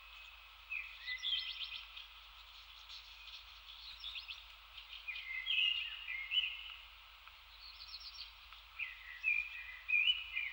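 Woodland songbirds singing, a series of short chirping phrases one after another.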